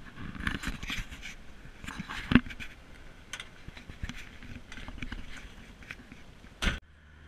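Footsteps crunching on gravel beside a 1965 Ford Mustang, then its door being opened and someone climbing into the seat, with a sharp knock about two seconds in. A heavy thump near the end as the door is pulled shut, cut off abruptly.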